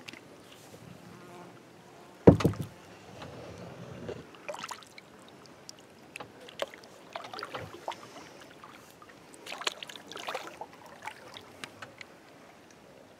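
Kayak paddling: the paddle dipping and splashing in irregular strokes, with one sharp, loud knock about two seconds in.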